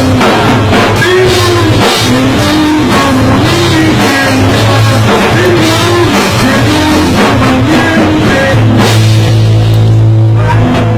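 A rock band rehearsing live, with drum kit and guitar under a wavering pitched line that rises and falls about once a second. About nine seconds in, the drumming thins out and a steady low hum holds.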